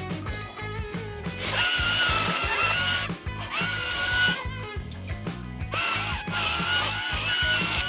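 Cordless electric power tool motor revving in four bursts, each spinning up quickly to a steady high whine, over background music with a steady beat.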